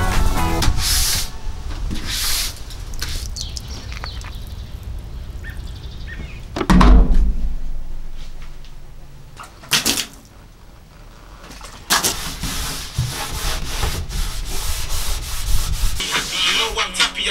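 Broom and rag scrubbing over a cargo van's bare ribbed metal floor in short separate strokes, with one loud thump about seven seconds in.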